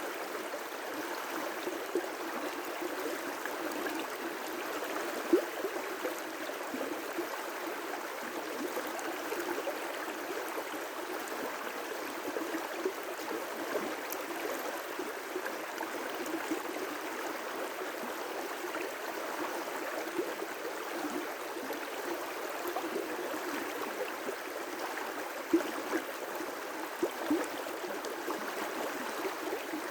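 River rapids, water rushing steadily, with a couple of brief louder splashes.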